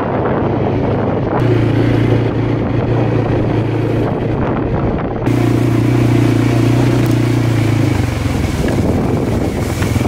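Four-wheeler (ATV) engine running under way over rough ground, a steady drone with rumble and rattle around it. Its pitch and tone change abruptly about a second and a half in, again about five seconds in, and once more near the end.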